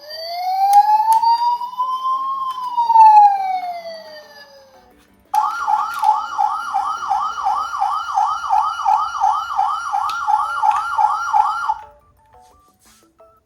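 Toy emergency vehicle's electronic siren: one slow wail rising and then falling, then a fast yelp about four times a second for some six seconds, cutting off suddenly.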